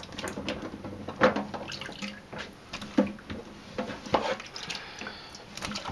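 Water sloshing and dripping in a stainless steel sink as gloved hands stir a sinkful of in-shell black walnuts, with irregular clacks of the nuts knocking together.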